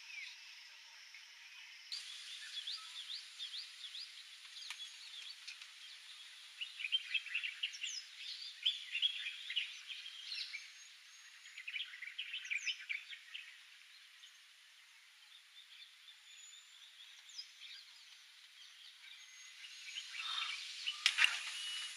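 Wild birds chirping and twittering in short scattered calls, busiest through the middle stretch, with a louder, lower burst of sound near the end.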